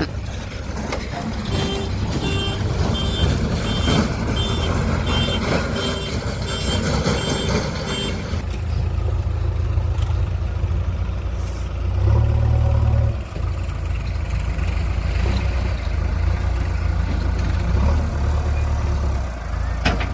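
Heavy diesel machine running steadily with its reversing alarm beeping about twice a second for several seconds. Around halfway the engine briefly grows louder under load.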